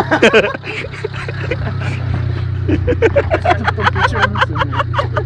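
Honda Civic's four-cylinder engine held at steady revs in a burnout, a front tyre spinning and squealing. The squeal wavers at the start and pulses about four times a second in the second half.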